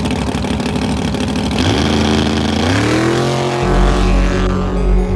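Drag-racing car's engine running loud and rough at the starting line. About a second and a half in, music fades in with rising tones, and a steady deep bass enters around three and a half seconds in, taking over as the engine noise fades.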